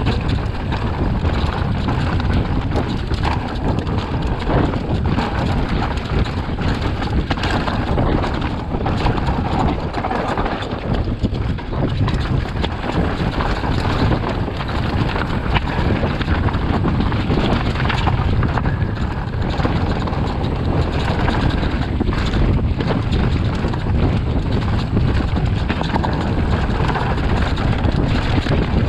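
Wind rushing over the microphone of a mountain bike's camera while riding a rough track, with frequent small knocks and rattles from the bike.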